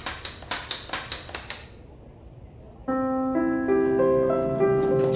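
Rapid, even clicking, about five clicks a second, stops about a second and a half in. About three seconds in, piano music begins.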